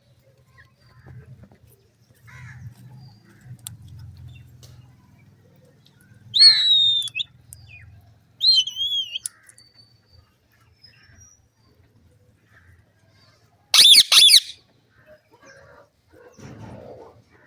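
Indian ringneck parrots calling: two shrill, falling calls about six and eight seconds in, then a louder, harsh double screech about fourteen seconds in.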